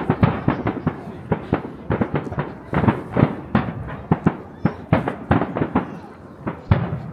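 Fireworks display: a rapid volley of sharp bangs, several a second, thinning out near the end.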